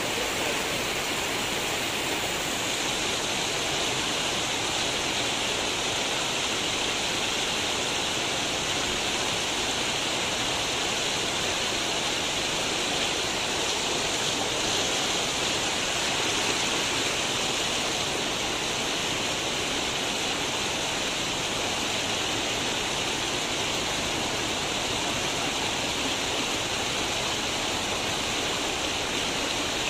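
Floodwater rushing across and over the edge of a flooded road: a steady, continuous rush of moving water.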